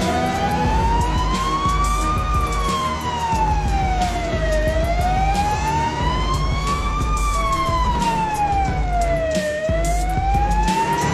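Emergency vehicle siren sounding a slow wail, one tone climbing and falling over about two full cycles of some five seconds each.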